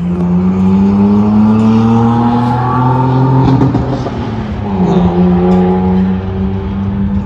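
Modified (upgraded) Toyota Land Cruiser accelerating hard: its engine note climbs for about three seconds, drops at a gear change about four seconds in, then climbs again.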